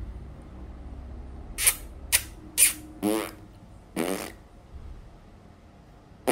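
A person making mouth noises: three short, sharp puffs about half a second apart, then two longer pitched noises around three and four seconds in.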